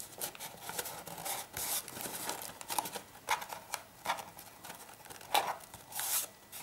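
Paper strips being handled and cut with scissors: scattered short snips and crinkles, with longer rustles about one and a half seconds in and again near the end.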